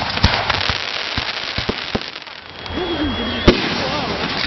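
Fireworks going off: dense crackling with many sharp pops, easing briefly about halfway through. A thin high whistle is followed by a loud bang about three and a half seconds in.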